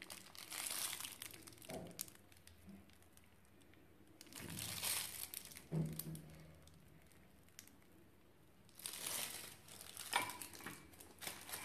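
Piping bag of whipped cream crinkling as it is squeezed, in about four separate bursts, each one piping a rosette.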